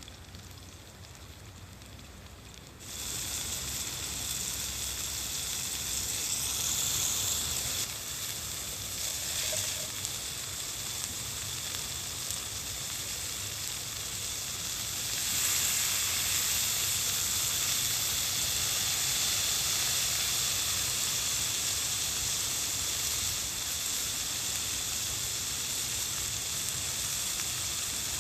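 Food frying in a hot pan over a campfire. The sizzling starts suddenly about three seconds in, as food goes into the hot fat, and grows louder again around fifteen seconds in.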